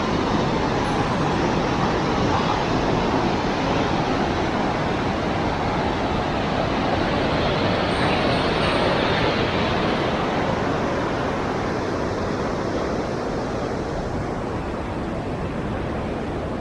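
Loud, steady rush of river water pouring over a weir, easing slightly near the end.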